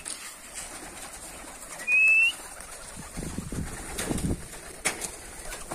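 Pigeons' wings flapping as several birds take off from the ground, in low fluttering swells from about three seconds in. A short, high, rising chirp sounds once about two seconds in.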